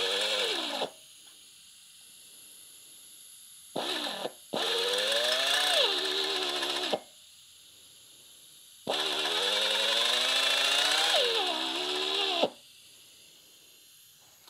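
Right-angle drill boring a 5 mm hole into the aluminium cylinder head of an air-cooled Porsche 911 engine, run in bursts of a few seconds with pauses between. The longest burst comes near the end. The motor's whine sags and recovers in pitch as the bit loads up.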